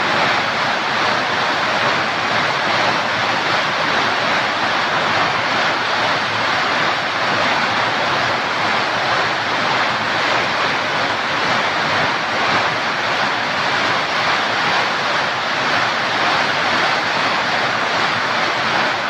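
Heavy rain pouring down in a steady, dense hiss that holds unchanged throughout.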